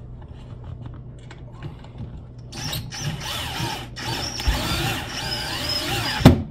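DeWalt cordless drill/driver driving screws into a wooden floor to fasten down a range outlet box. The motor whines from about two and a half seconds in, its pitch wavering as the screw takes load, and a sharp knock comes near the end.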